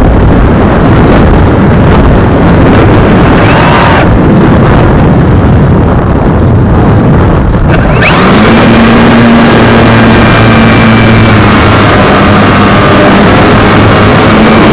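Loud wind rush on the onboard camera's microphone of a brushless-electric RC plane in flight. About eight seconds in, the whine of the electric motor and propeller rises in and then holds a steady pitch over the wind.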